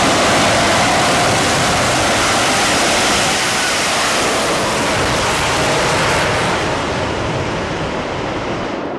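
Shockwave jet truck's three Pratt & Whitney J34 jet engines at full power with afterburners lit, a loud, even rush of noise as the truck launches and passes. Near the end the sound dulls and fades as the truck goes away down the track.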